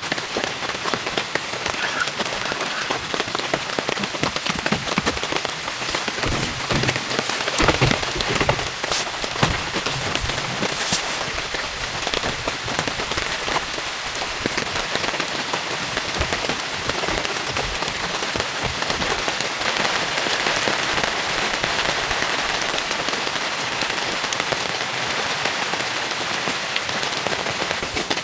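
Steady rain pattering: a dense, even mass of small drops with a few sharper individual taps.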